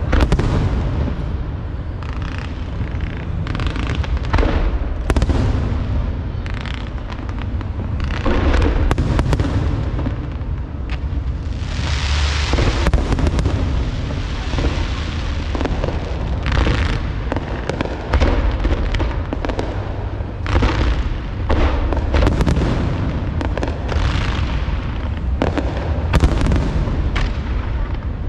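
Large aerial fireworks display: shells bursting one after another with no gaps, sharp reports over a constant deep boom, and a dense stretch of crackling about twelve seconds in.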